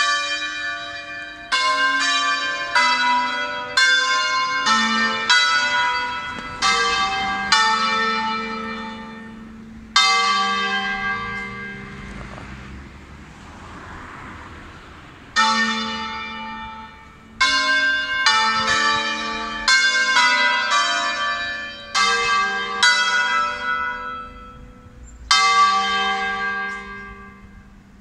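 Church tower bells rung for Mass, struck one after another in a run of several different pitches, each strike ringing on and fading. Midway the strikes stop for about five seconds while the last one rings out, then a second quick run of strikes follows.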